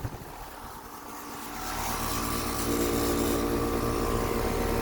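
Carrier Comfort central air conditioner's outdoor condenser unit running with a steady hum, growing louder about a second and a half in.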